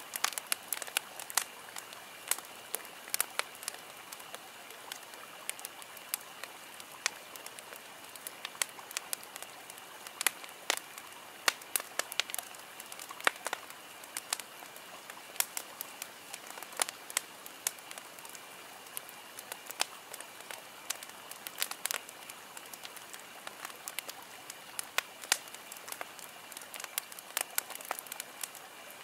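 Fire crackling with irregular sharp pops, several to the second and some louder than others, over a steady hiss of running water.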